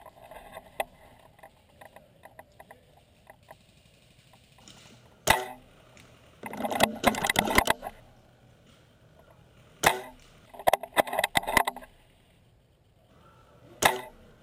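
Airsoft gunfire: three single sharp shots, about four seconds apart, and between them two rapid bursts of automatic fire lasting about a second each. Fainter scattered pops in the first few seconds.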